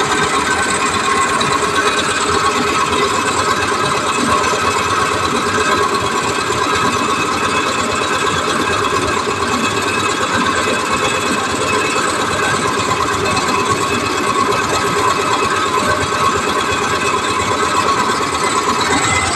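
Concrete mixer running steadily: a continuous mechanical whir.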